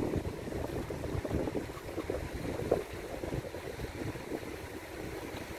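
Wind buffeting the camera's microphone as a bicycle rolls along a paved path, a fluttering low rush with a brief knock about halfway through.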